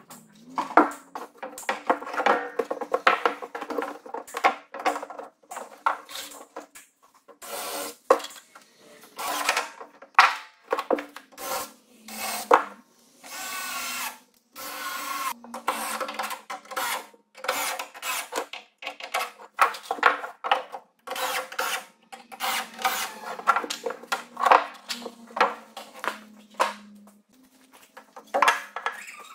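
Larch boards being handled and fitted: repeated wooden knocks, clatter and rubbing, with a couple of seconds of a cordless drill running about halfway through.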